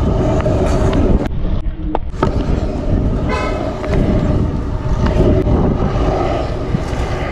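Stunt scooter wheels rolling over rough concrete with a steady low rumble and wind buffeting the camera microphone. A short horn-like toot sounds about three seconds in.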